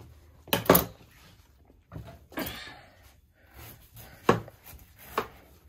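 Kitchen knife cutting into a watermelon on a cutting board: a few sharp knocks of the blade against the board, two close together about half a second in and more near the end, with a softer slicing scrape between.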